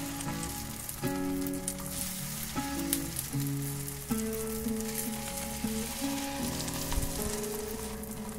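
Pancake batter with feta and chopped vegetables sizzling in a hot frying pan, with background music playing over it.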